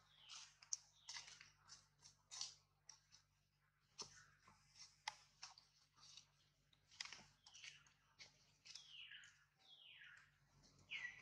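Faint crackling and snapping of leaves and twigs as a baby macaque moves about on the branch, in many short irregular clicks. Near the end come a few short high-pitched calls that slide downward.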